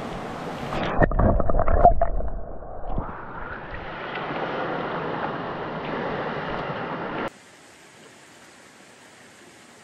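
A hand and camera plunge into a shallow creek to release a brook trout: splashing, then the stream's rush heard muffled under water for a few seconds. About seven seconds in the sound drops abruptly to a faint steady hiss.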